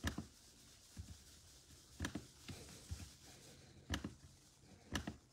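Faint, scattered clicks from a laptop's touchpad and keys, a few sharper ones spaced about a second apart, as a list is re-randomized.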